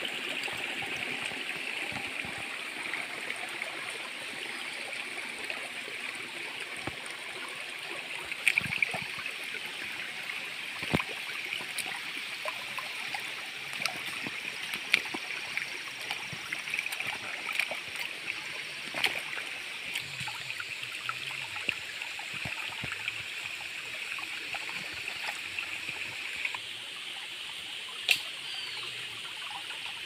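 Shallow stream running over stones and dirt down a forest path, a steady trickling, babbling sound, with a few short sharp clicks scattered through it.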